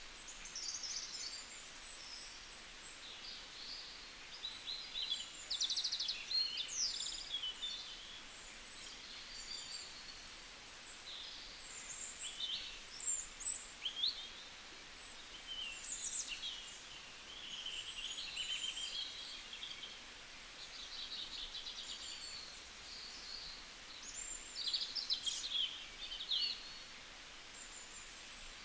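Several small songbirds chirping and trilling, with short high calls and quick rapid-note trills overlapping, over a faint steady hiss of outdoor background.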